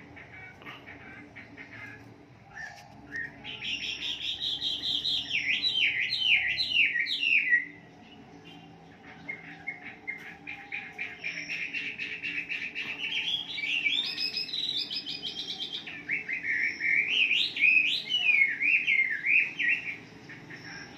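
Chinese hwamei (wambi) singing: rapid, varied whistled phrases that slur up and down, coming in long loud bursts with a short break about eight seconds in and a stretch of quickly repeated notes in the middle.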